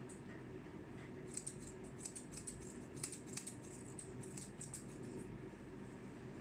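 Grooming shears snipping dog fur around the muzzle: a run of quick, light snips, about three to four a second, starting about a second in and stopping near the end.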